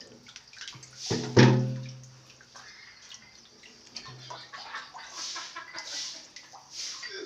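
Water splashing and sloshing on a wet tiled floor in short repeated bursts as a live fish is grabbed and lifted. About a second in comes the loudest moment: a knock followed by a brief low pitched sound.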